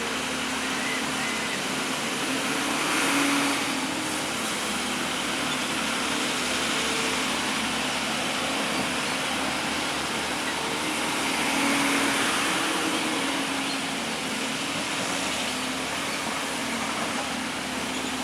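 Large hydraulic excavator's diesel engine running steadily with a constant hum, swelling louder twice as it takes load.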